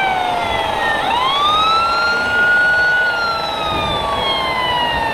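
Wailing siren from an RC scale model fire truck: its pitch is falling at first, sweeps up sharply about a second in, holds high for about two seconds, then slowly falls again, over steady hall noise.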